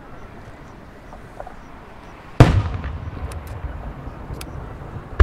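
Aerial firework shells going off: one loud boom about two and a half seconds in, with a long rumbling echo after it, and another sharp boom at the very end.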